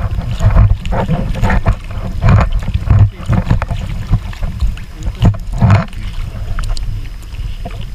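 Wind buffeting the camera microphone as a low, uneven rumble, with kayak paddles splashing in the water about once a second.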